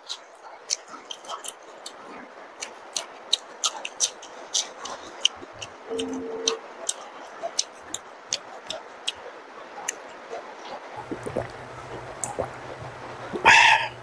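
Close-miked eating sounds: a person chewing soft puri (luchi) with curry, with a few wet mouth clicks and lip smacks each second. One louder, brief noise comes near the end.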